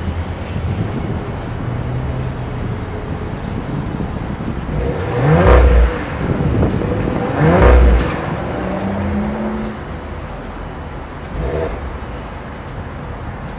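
Audi RS4 Avant's twin-turbo 2.9-litre V6 idling through its oval exhaust tailpipes, blipped twice by a brief rev about two seconds apart around the middle, each rising in pitch and falling back to idle.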